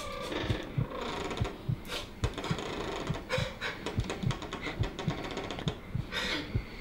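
A man crying and gasping for breath, over a steady low thumping beat of about three thumps a second.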